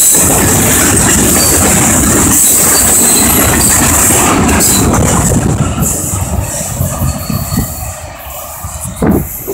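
Norfolk Southern freight train cars rolling past, a dense rumble of wheels on rail with a thin steady high squeal. It grows quieter over the last few seconds as the train draws away.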